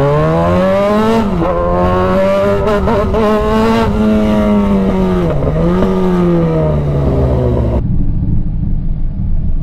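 Kawasaki Z1000 inline-four motorcycle engine under hard acceleration for a pickup test. The engine note climbs, drops sharply about a second in, climbs again and holds high, with another brief dip around five seconds in. The sound turns duller in the last couple of seconds.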